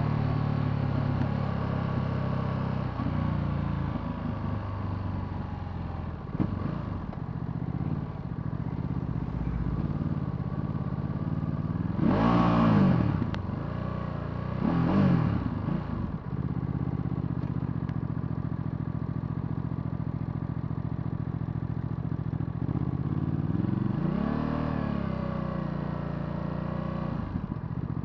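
Ducati Multistrada V2S's 937 cc V-twin engine running steadily at low revs. Its revs rise and fall sharply twice, about twelve and fifteen seconds in, and once more gently near twenty-four seconds.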